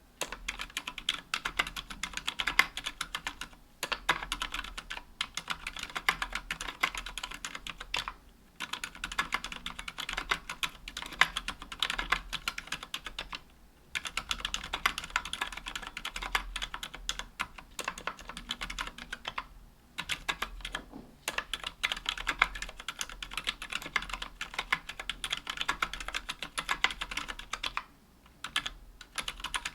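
Continuous fast typing on a 60% aluminium mechanical keyboard with silent linear switches (Healios 67g) and GMK keycaps: soft, muted key presses in quick runs broken by short pauses every few seconds.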